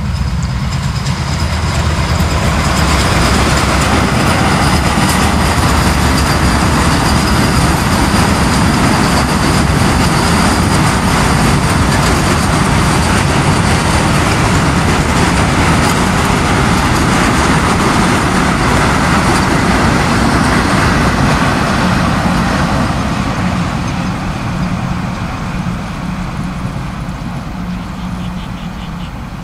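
Train passing at speed, with a steady rush and rumble of wheels on the rails. It builds over the first couple of seconds, holds, and fades away over the last several seconds.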